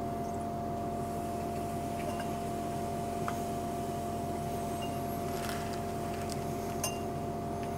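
Fume hood exhaust fan running with a steady hum, with a few faint ticks as sulfuric acid is dripped into the hot beaker.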